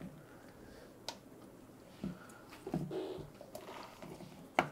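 Raw potato slices being laid one at a time into oil in a nonstick pot: soft wet squishes, with a sharp click about a second in and a louder one near the end.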